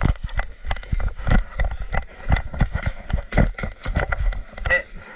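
Footsteps of a player running, a quick irregular run of heavy thuds about three or four a second, with gear and the body-worn microphone jostling.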